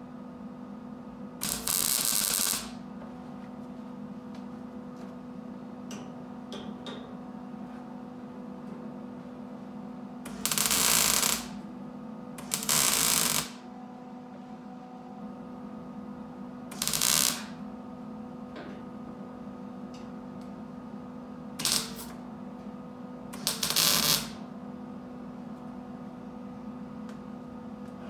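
Wire-feed (MIG) welder crackling in six short bursts, each under about a second, as tack and stitch welds are laid on the sheet-metal trunk extension. A steady low hum runs beneath and between the bursts.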